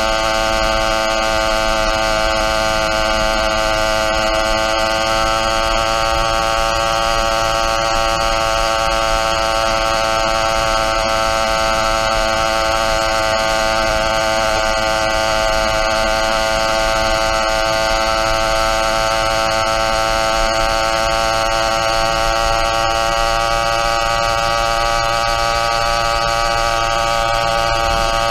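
YD100 two-stroke motorized-bicycle engine running at a steady cruising speed, a constant high buzz that holds nearly one pitch throughout.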